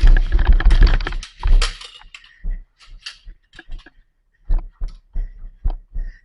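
A fast, dense run of sharp clicks and knocks for about the first two seconds, then scattered single clicks, over a low rumble on the microphone.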